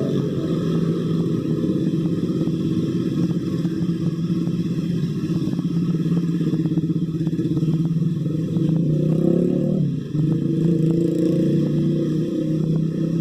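A motor engine running steadily close by, its low pitch dipping and bending briefly about ten seconds in before carrying on, with light clicks over it.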